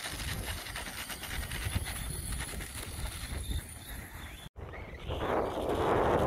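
Brushless electric ARRMA Outcast 4S RC truck driving at a distance, its motor and tyre noise mixed with wind buffeting the microphone. The sound breaks off for an instant about four and a half seconds in, then comes back as a louder rushing noise with a faint rising whine.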